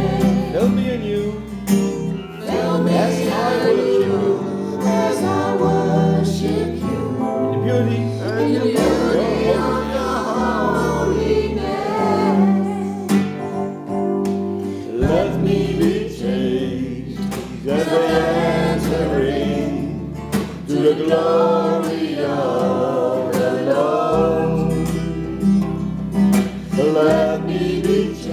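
Amateur choir singing a slow worship song together, with instrumental accompaniment holding steady low notes beneath the voices.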